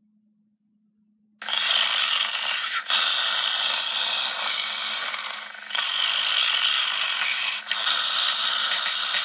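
Near silence with a faint low hum, then about a second and a half in a loud, harsh, scratchy noise starts abruptly and runs on, with a few brief dips.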